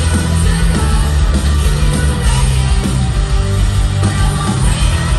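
Live pop-punk rock band playing loud and steady through a concert PA, heard from within the audience, with heavy bass and drums.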